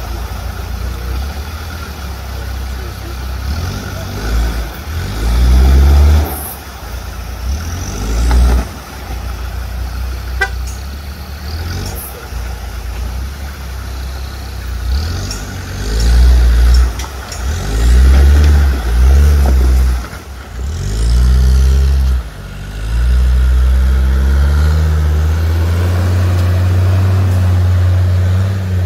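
Off-road 4x4 engine revving in repeated loud bursts, its pitch rising and falling. Near the end it holds steady at high revs for several seconds.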